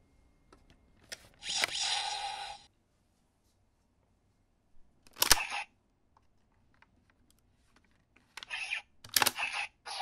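Plastic clicks and snaps from a CSM Drag Visor toy gauntlet and V Buckle belt being handled. A short burst of noise comes about a second and a half in and a single sharp click at about five seconds. Near the end there is a cluster of clicks, the loudest a sharp snap, as the Drag Visor's dragon head is flipped open.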